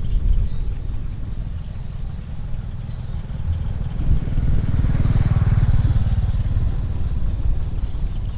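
Steady low rumble of wind and road noise, with a motor vehicle's engine growing louder to a peak about five seconds in, then fading, as it passes close by.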